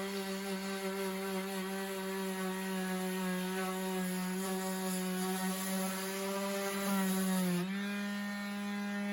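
DeWalt DCW210B 20V brushless random orbital sander running while sanding, a steady motor whine with the hiss of the pad on the surface. The pitch sags briefly about seven seconds in as the sander is loaded, then comes back up.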